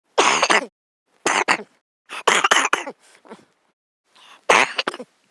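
A man coughing in a series of separate coughs, four loud ones about a second apart with a fainter one between.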